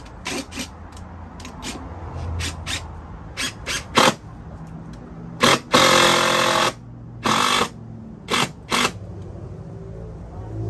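Cordless drill driving screws into a wooden ramp in short bursts, the longest about a second long a little past halfway, with shorter bursts after it. Sharp clicks and knocks from handling the wood and the tool come between the bursts.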